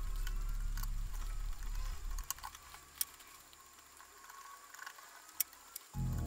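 Background music for about the first two seconds, then a few sharp metallic clicks and taps as the brass plates and parts of a Predom Metron clock movement are handled and fitted together. The loudest clicks come about three seconds and about five and a half seconds in. The music comes back near the end.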